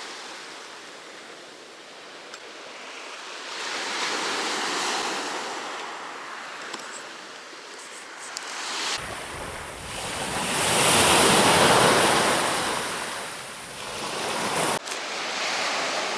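Sea waves washing onto a beach, the surf swelling and fading in slow surges a few seconds apart, the biggest about two-thirds of the way through. A low rumble of wind on the microphone cuts in for several seconds under that biggest wave.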